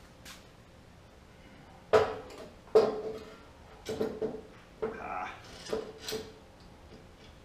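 Sharp metal clanks and knocks, about seven over four seconds with a short ringing after each, the first and loudest about two seconds in. An aluminium front-mount intercooler is bumping against the car's front end as it is pushed into place for a test fit.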